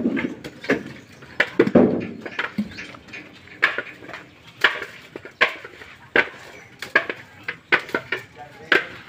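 Husked coconuts knocking against one another as they are picked off a pile and tossed into woven bamboo baskets: a string of short, sharp knocks at an irregular pace of about one or two a second.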